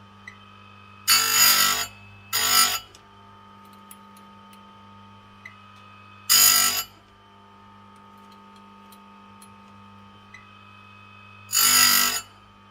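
Oregon Jolly electric saw-chain grinder running with a steady hum, its grinding wheel brought down onto the chain's cutter teeth four times, one tooth after another. Each pass is a loud, short grinding of under a second.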